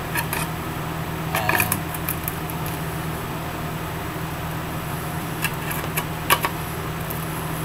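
A steady low machine hum, with a few light metallic clicks and clinks; the sharpest comes a little after six seconds in.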